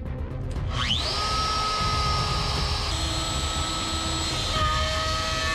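A DeWalt compact router used as a CNC spindle spins up with a steeply rising whine about a second in. It then runs at a steady high pitch, and its tone shifts twice as the bit works into the MDF sheet.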